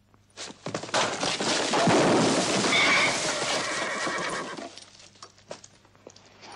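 A horse whinnying over a loud burst of clattering noise that lasts about four seconds and then dies away to scattered clicks.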